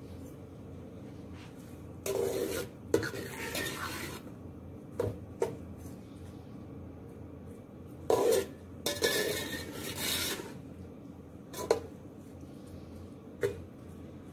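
Metal spoon stirring sliced onions in oil in a metal pot, scraping and clinking against the pot in two spells of a couple of seconds each, with a few single knocks of the spoon between. The onions are raw and just starting to be browned.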